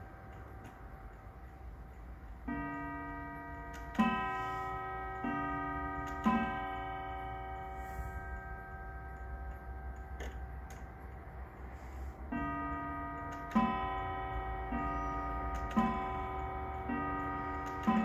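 Antique German mantel clock's quarter-strike sounding ding-dong pairs on its two gongs of different pitch, each stroke left ringing: two pairs about two and a half seconds in, then three pairs from about twelve seconds. The clock ticks quietly underneath.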